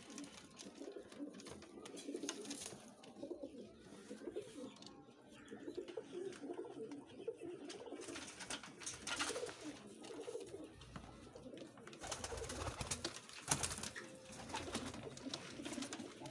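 Pair of Teddy pigeons cooing, a low throaty murmur that repeats. In the second half there is rustling with a few sharp knocks.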